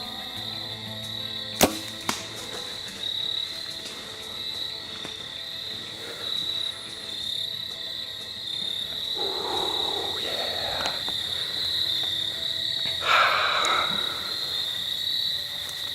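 A single shot from a Mathews Halon compound bow about one and a half seconds in, a sharp snap, followed half a second later by a fainter click. Crickets keep up a steady high chirring throughout, with two bursts of rustling later on.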